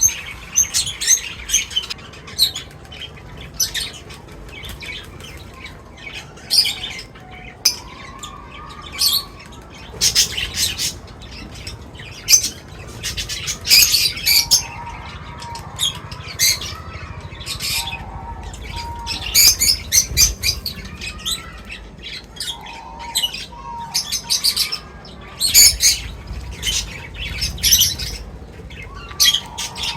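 Several small birds chirping in quick, overlapping runs of short high notes, with occasional lower warbling calls in between.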